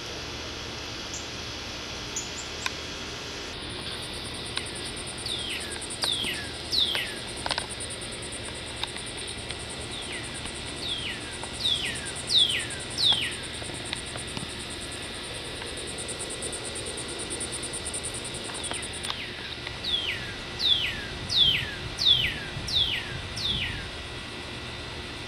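A songbird singing runs of loud, clear downslurred whistles, four to six in a row, three times over. Behind it a steady, high insect trill runs through the first two thirds and stops abruptly.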